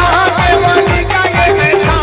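Qawwali music: quick, regular drum strokes with low notes that drop in pitch, over a steady bass and a wavering melodic line.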